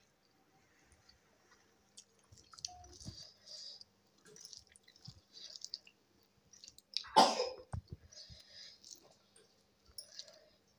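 A person eating rice and mashed vegetable by hand from a ceramic plate: soft chewing and wet squishing of fingers working the rice, with scattered small clicks. About seven seconds in comes a single short, loud burst, the loudest sound.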